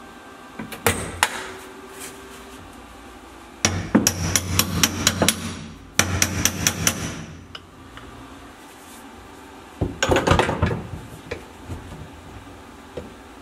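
Hammer striking the steel floor pan repair panel of an Alfa Romeo Giulia 105 as it is beaten into the floor opening. A couple of single taps come about a second in, then three runs of quick, ringing metallic blows.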